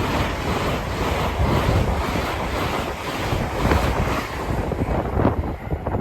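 LNER express train passing through the station at speed: a steady rush of wheel and air noise with rattles, and wind buffeting the microphone.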